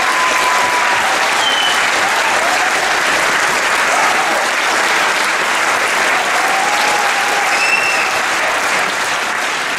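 Audience applauding steadily, the clapping dense and even throughout.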